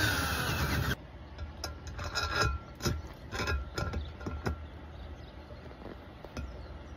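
Ryobi cordless drill running under load as it widens a bolt hole in a metal bracket, cutting off about a second in. Then a few light knocks and scrapes as the pad's bolts are worked into the enlarged holes.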